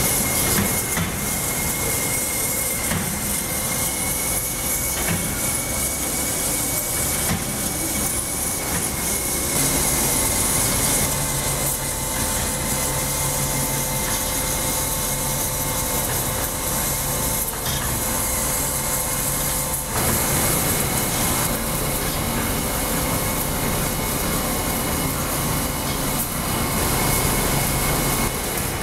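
Wire drawing and ribbing machine running: a steady mechanical din with a high whine over a hiss. A lower hum and extra tones join about ten seconds in and change again at about twenty seconds.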